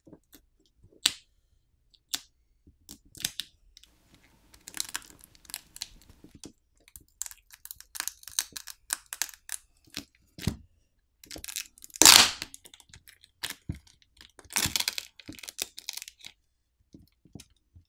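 Samsung Galaxy A14 5G battery's adhesive pull pouch being pulled and peeled free: irregular crackling and crinkling of plastic film and adhesive, with a louder crackle about twelve seconds in.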